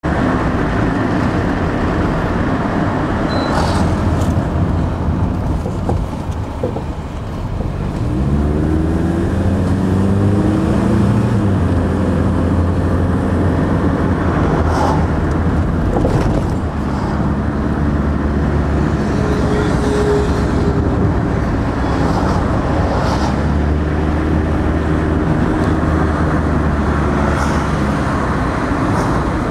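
Car engine and road noise heard from inside the car while driving. The engine note dips briefly, then rises as the car speeds up about eight seconds in and settles into a steady run, with a few short knocks along the way.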